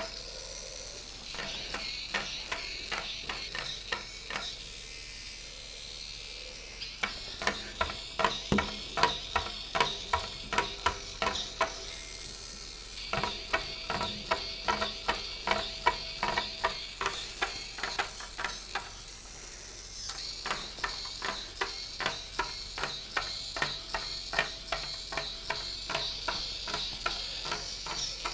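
Hexbug Spider robot walking: its small geared motor drives the plastic legs in a steady run of rapid clicks, a few every second, over a high motor whine. The clicking stops briefly three times and then resumes.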